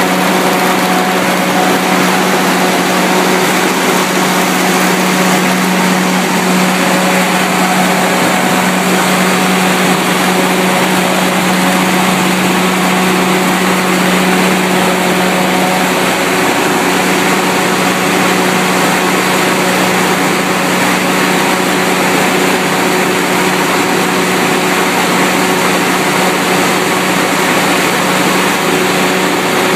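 Onan 70 kW stationary generator set with its LP-fuelled International Harvester V549 V8 engine, running steadily with an even, unbroken hum.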